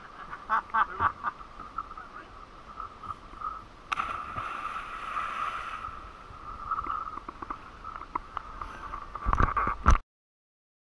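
A person backflipping off a boat into the sea: a sudden splash about four seconds in, then the hiss of churned water and foam for a couple of seconds. A few loud knocks come near the end before the sound cuts off.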